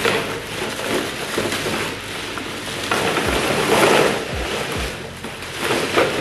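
Large clear plastic bag packed with empty plastic containers crinkling and rustling as it is hauled out of a cardboard box, with a few dull knocks.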